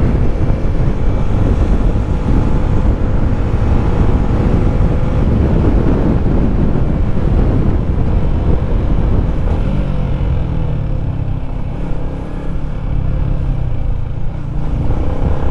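Yamaha Sniper 155's single-cylinder four-stroke engine running while the motorcycle is ridden, under heavy wind rumble on the camera microphone. The engine note drops lower about ten seconds in.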